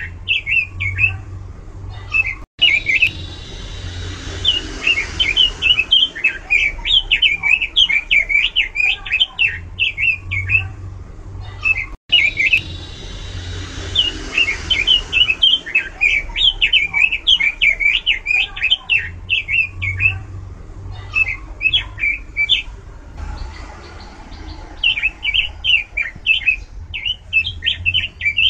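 Red-billed leiothrix (Pekin robin) singing loudly: long runs of quick, varied high chirping notes with short pauses between phrases. The sound cuts out briefly twice, and a low hum lies underneath.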